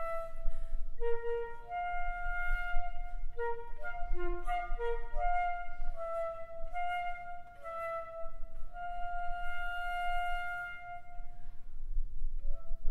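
Solo concert flute playing a quick, leaping passage of short notes, with one long held note about two-thirds of the way through and a brief break before the playing picks up again near the end.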